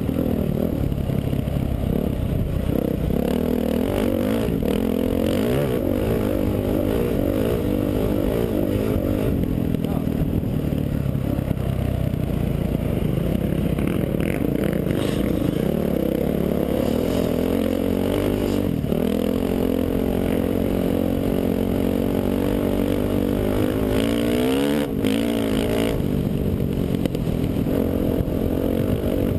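Dirt bike engine under load as the bike is ridden across open ground, its note rising and falling with throttle and gear changes, with a quick rising rev about 25 seconds in. A few knocks come from the bike over rough ground.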